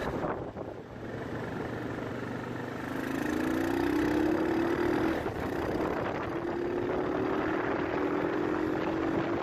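Asya Ultra 150 motorcycle engine (200cc) pulling up through the revs, its pitch rising from about three seconds in, with a short break just after five seconds and a second rise after it, over steady wind and road noise.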